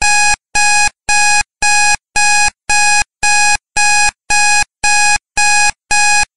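Countdown timer alarm beeping at zero: loud, evenly spaced beeps of a single pitch, about two a second, starting suddenly out of silence. The alarm signals that the countdown has run out.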